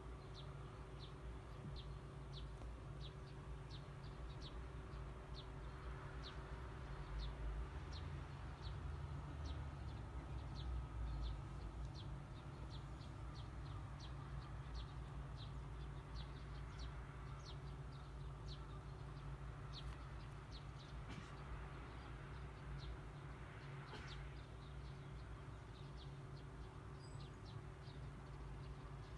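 A small bird chirping over and over, short high chirps about three every two seconds, over a steady low hum.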